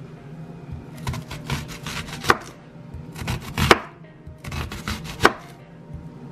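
Kitchen knife slicing through a whole onion on a bamboo cutting board: three runs of quick cuts, each ending with a sharper knock as the blade meets the board.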